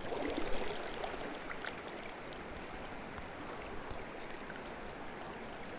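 Steady rush of a shallow river's current flowing around the wading angler, with a few faint ticks.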